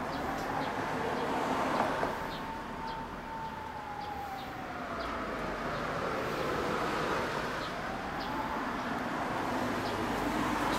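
Emergency vehicle siren wailing, its pitch falling slowly over several seconds and rising again near the end, over a steady background rumble.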